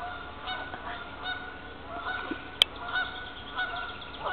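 Geese honking, a string of short repeated honks, several overlapping. A single sharp click sounds a little past halfway through.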